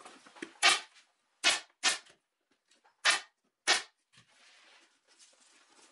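Pneumatic upholstery staple gun firing five times, irregularly spaced, as staples are driven through the cover fabric into the plywood seat board. Faint rustling of the fabric being handled between shots.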